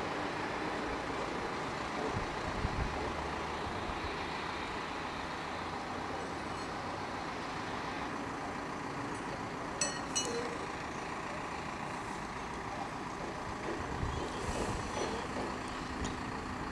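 Truck-mounted crane's diesel engine running steadily, with a couple of sharp clicks about ten seconds in.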